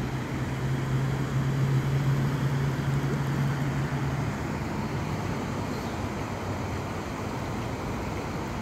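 Steady rush of river water over rocky shoals, with a low steady hum underneath that fades out about four seconds in.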